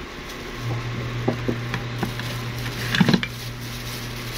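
A plastic bag being handled, with a few sharp knocks and clicks, over a steady low hum that comes on about half a second in.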